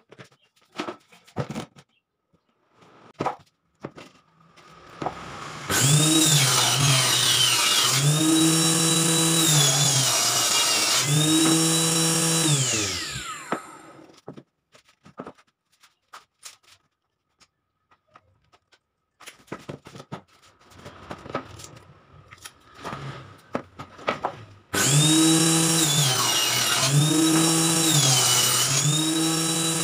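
Table saw motor starting and cutting plywood strips, its pitch dipping briefly each time a piece goes through the blade. It winds down with a falling whine, then starts again for a second run near the end. Light knocks of boards being handled come between the runs.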